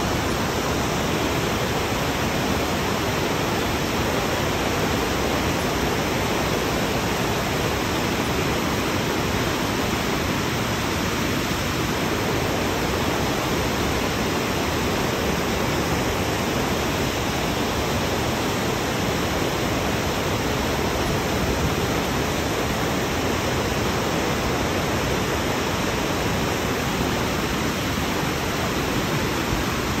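Waterfall and whitewater creek rushing over rock: a steady, even noise that holds unchanged throughout.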